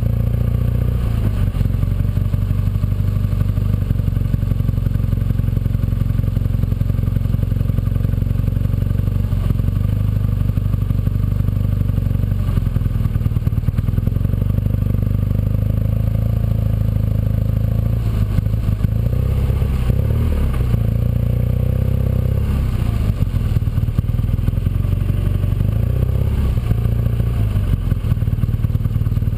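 Motorcycle engine running at road speed, a steady drone whose pitch shifts up and down for a few seconds in the second half as the speed changes.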